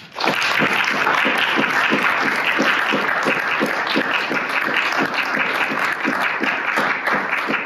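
Audience applauding, starting abruptly and holding steady, with one clapper standing out at about three claps a second.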